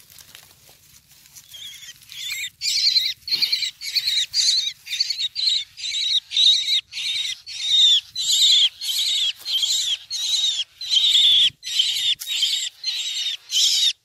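Young myna calling over and over: short high calls about two or three a second, each dropping slightly in pitch, starting about two seconds in.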